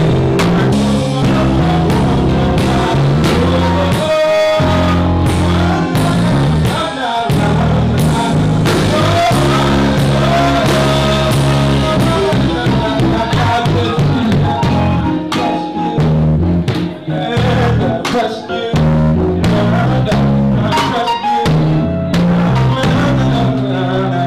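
Live R&B band playing: electric keyboard chords and melody over a drum kit keeping a steady groove.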